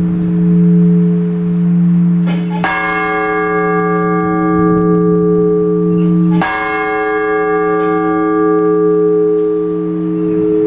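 Large Orthodox church bell struck slowly, twice, about four seconds apart. Each stroke rings out bright and then fades, over the bell's deep hum, which lingers between strokes.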